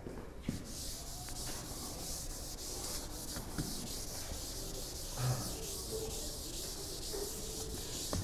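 Chalkboard eraser wiping chalk off a board: a steady rubbing hiss, with a soft knock about five seconds in.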